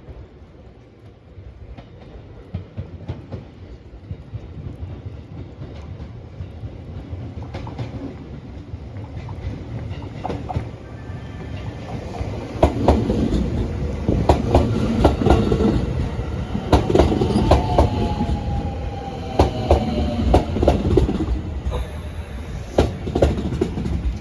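An electric passenger train pulling into a station, growing steadily louder as it approaches. About twelve seconds in, the cars reach the microphone and their wheels clack rhythmically over the rail joints. A faint wheel squeal comes in as it slows.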